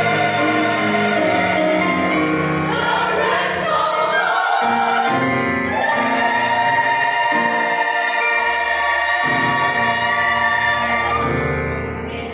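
Women's choir singing the final phrase of a gospel song and holding the closing chord, which dies away near the end.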